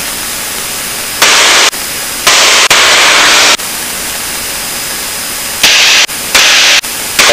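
Cockpit intercom audio in a light aircraft in flight: a steady hiss, broken several times by louder rushes of engine and wind noise that switch on and off abruptly, each about half a second long, as a headset microphone's squelch opens and closes on the cabin noise.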